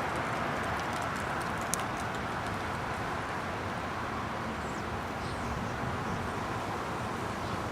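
Steady outdoor background hiss, with a sharp click about two seconds in and a few faint high chirps near the middle.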